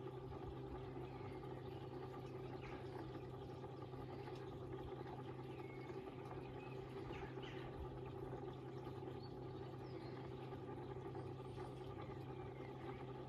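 Koi pond pump and filter system running with a steady low hum. Faint bird chirps come through now and then.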